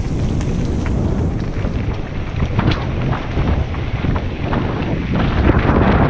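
Mountain bike descending a gravel trail at speed: wind rushing over the microphone, with the tyres rumbling over gravel and frequent short clicks and rattles.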